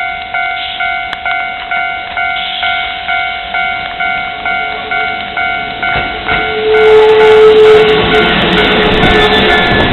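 Level-crossing warning bell ringing, an electronic clang repeating about one and a half times a second. About two-thirds in, a Keisei 3300-series electric train arrives and passes over the crossing, louder than the bell, with rapid wheel clacks. A steady tone sounds for about a second as the train comes in.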